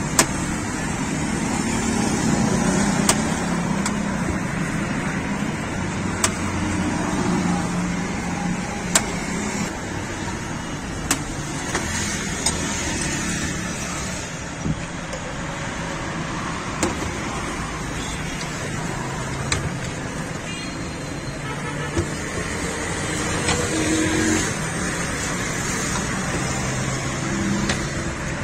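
Steady roadside traffic noise, with a sharp click or knock every few seconds from knives and utensils on a steel counter.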